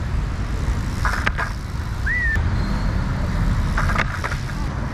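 Steady low rumble of city traffic, with a couple of short knocks and a brief high squeak about two seconds in. A BMX bike's tyres roll over the tiled paving close by near the end.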